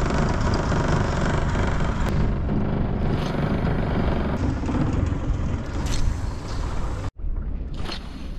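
Old Mariner outboard motor running steadily, which the owner says doesn't sound too happy, though he doesn't know what is wrong with it. About seven seconds in the sound cuts off abruptly and comes back quieter.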